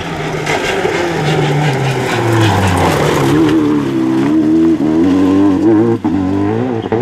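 Citroën DS3 rally car engine driven hard through a tight bend, its pitch rising and falling quickly with throttle blips and gear changes, with loose gravel noise under the tyres. About six seconds in there is a short sharp break in the sound as the car runs off the road into the bushes.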